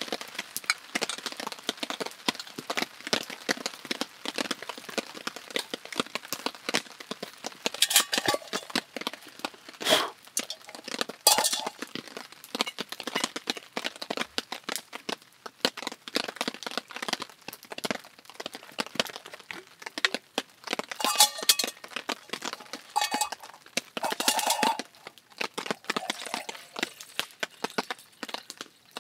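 Rain falling as a dense, steady run of small ticking drops. Over it come louder metal clinks and knocks now and then as a backpacking gas-canister stove and cook pot are handled.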